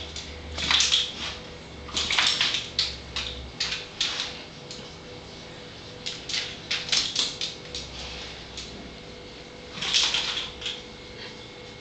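A dog's claws clicking and scrabbling on a vinyl kitchen floor as it pounces and paws about, in irregular flurries of sharp taps, the loudest about a second in, around two seconds and near the end.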